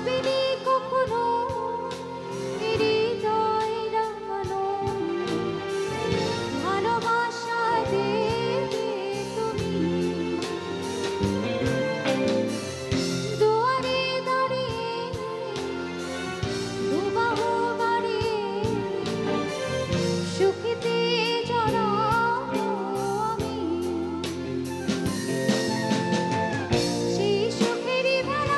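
A woman singing into a microphone with a live band behind her: keyboard, drum kit and electric guitars playing a song.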